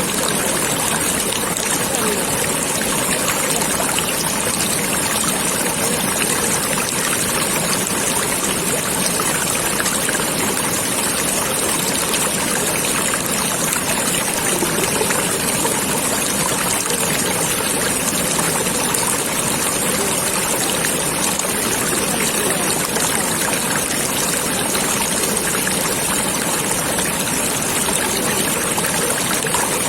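Water flowing steadily in a stream, with a continuous babbling, trickling rush.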